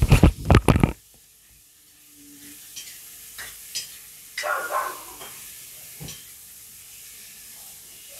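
A spoon stirring and scraping sliced onions and green chillies frying in sunflower oil in a black kadai, loud and clattering for the first second. After that the frying hisses softly, with a few scattered taps of the spoon against the pan.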